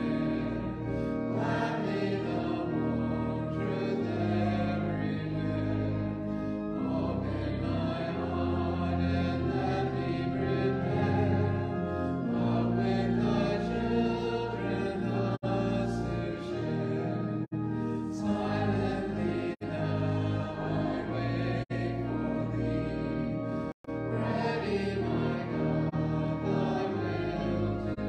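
Congregation singing a hymn to organ accompaniment, sustained chords in a steady flow. In the second half the recording drops out briefly several times, about every two seconds.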